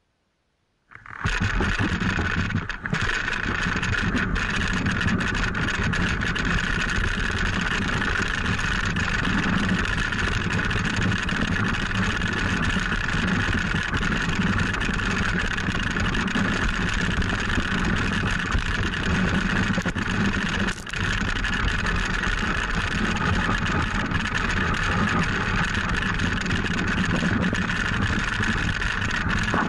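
Wooden toboggan sliding fast over packed snow: steady scraping of the runners mixed with wind rushing over the microphone, starting abruptly about a second in.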